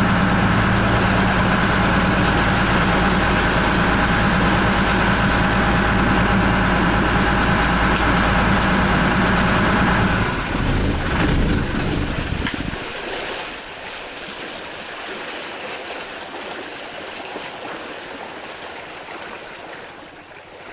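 Fishing boat's engine running steadily under way, then cut about ten seconds in, dying away over a couple of seconds. After that only a softer hiss of wind and water remains as the boat drifts.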